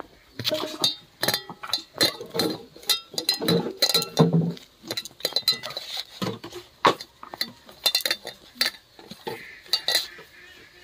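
A hand mixing dry gram flour in a stainless-steel bowl: an irregular run of sharp clinks and taps as the fingers knock against the steel, some ringing briefly.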